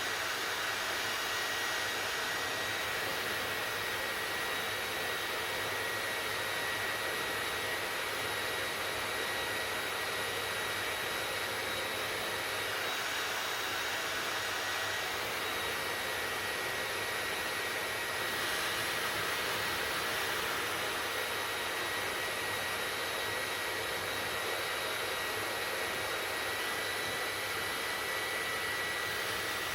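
Hair dryer running steadily on one setting: a constant rush of air with a thin, high, steady whine from its motor.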